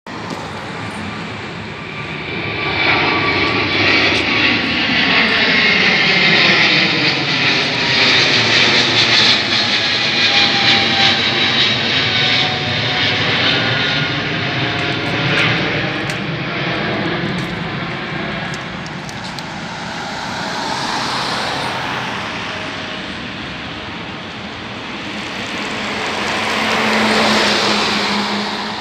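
Boeing 777-300ER's twin GE90 turbofan engines at takeoff climb thrust as the jet passes low overhead. A jet roar builds over the first few seconds, with falling tones sweeping through it as it goes by, then slowly fades to a rumble. The rumble swells once more near the end.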